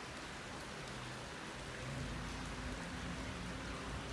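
Faint, steady hiss of runoff water trickling through a muddy creek bed choked with branches and debris. A low hum comes in about halfway through.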